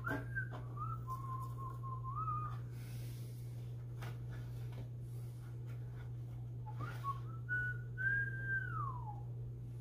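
A person whistling a slow tune in two phrases, one at the start and one about seven seconds in, with held notes and a falling glide at the end. A steady low hum and a few light clicks lie underneath.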